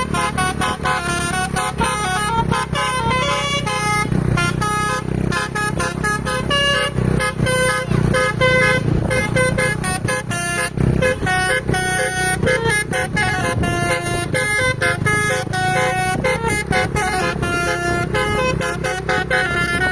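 Bus telolet horn playing a quick tune of short, stepped notes over and over, with the bus engine running underneath.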